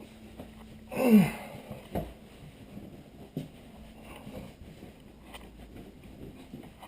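A towel rubbing a wet dog's short coat, with a short falling-pitched vocal groan about a second in and a couple of light knocks.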